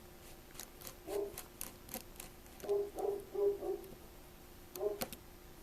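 Small, faint clicks and ticks of tiny phone screws and a precision screwdriver being handled and set down. A few short, faint pitched sounds come in between.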